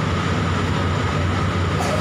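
A car ferry's engines running steadily during berthing: a continuous low hum with a thin, steady whine above it.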